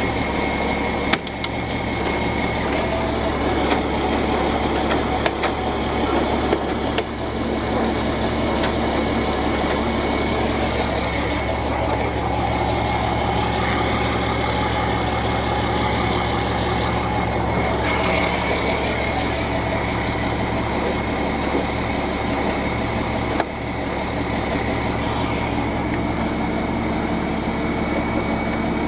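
Tow truck engine running steadily at idle while its winch pulls a car up out of a ditch, with a few sharp clicks along the way.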